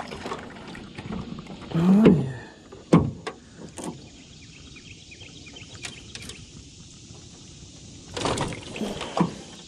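Knocks and handling noise in a small fishing boat as a bass is brought aboard, with a brief voiced exclamation about two seconds in, two sharp knocks soon after, and a short noisy burst near the end.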